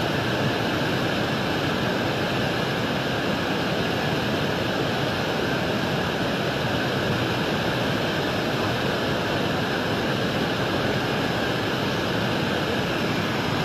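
The Swat River in heavy flood: a steady rush of fast, muddy floodwater.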